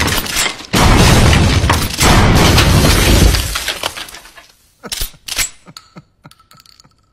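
Handheld confetti cannons going off in quick succession, a loud bang with a long crashing rush of noise each time, three in a row. The noise fades out over a second or so, followed by a few scattered knocks.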